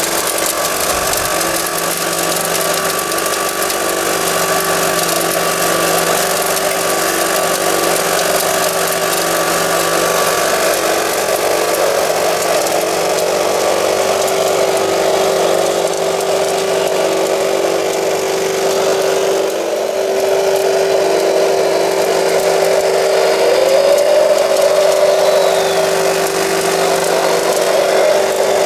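Electric drive motors and hydraulic pump of RC construction models, a gravel shaker screen and a Volvo L250G wheel loader, whining steadily. A short rising whine comes a little before the end, as the loader works its bucket.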